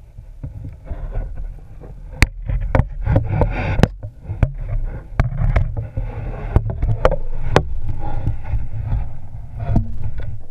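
Muffled handling noise from an underwater camera: a steady low rumble with many sharp clicks and knocks as the camera and its line are jostled in the water.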